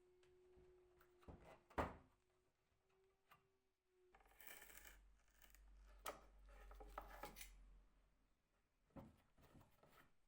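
Faint handling noises from hands at work: a sharp knock about two seconds in, then a few seconds of rustling and scraping over a low rumble, with a light click in it and another short rustle near the end. A faint steady hum runs under the first few seconds.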